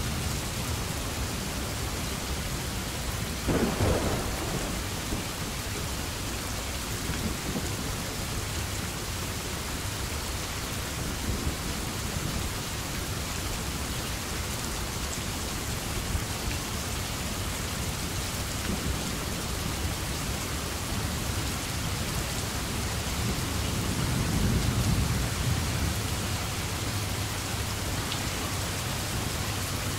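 Steady rain with thunder: a sudden thunderclap a few seconds in, and a low rumble that swells for a few seconds later on.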